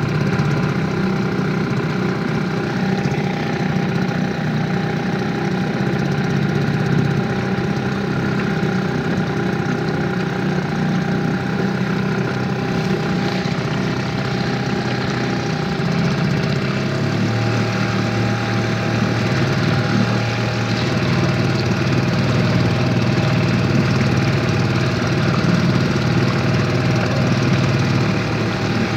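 Outboard motor running steadily, pushing the boat under way, its engine note dropping a little about two-thirds of the way through.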